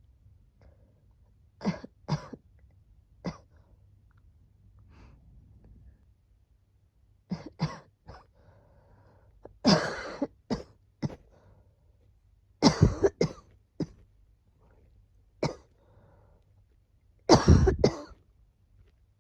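A woman coughing again and again: single coughs at first, then fits of two or three coughs in quick succession. The last fit, near the end, is the loudest.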